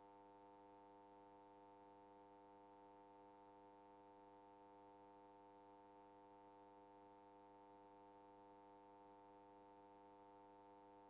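Near silence with a faint, steady electrical hum of several unchanging tones.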